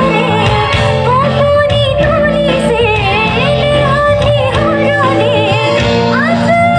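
A woman singing live into a microphone, her melody wavering and ornamented, over instrumental accompaniment with a steady drone and repeating bass notes.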